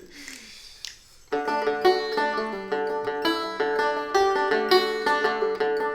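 The instrumental opening of a song: after a quiet first second, a plucked acoustic string instrument starts up, picking a quick, steady run of notes.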